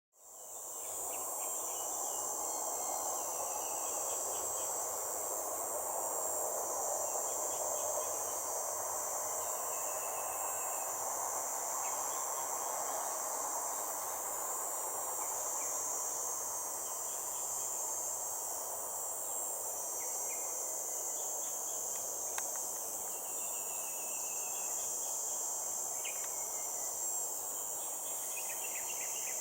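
Steady, high-pitched daytime insect chorus that fades in over the first second, with a few faint short chirps and a steady background rush.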